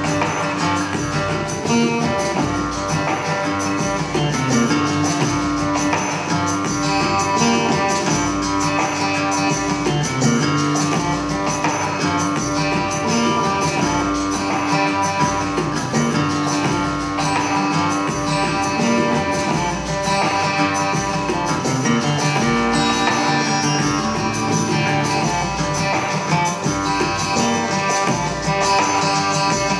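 Stage-show music with a steady, regular bass beat under sustained held notes.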